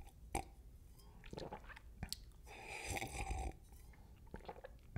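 Sipping from a wine glass: faint mouth sounds with small clicks, and a longer sip about three seconds in.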